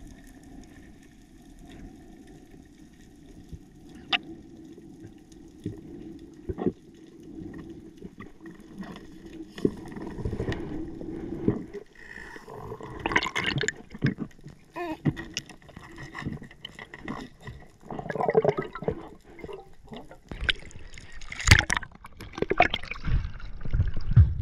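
Underwater sound of a freediver's dive heard through the camera's underwater housing: a low steady water noise with scattered clicks, growing into denser crackling and bubbling after about ten seconds. Loud splashes near the end as the diver breaks the surface.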